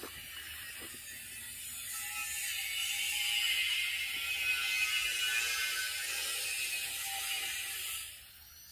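High, grating insect buzz that swells over the first few seconds and cuts off suddenly near the end.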